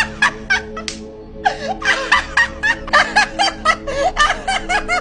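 A person laughing in rapid short bursts, about four a second, building from about a second and a half in, over background music with a steady held chord.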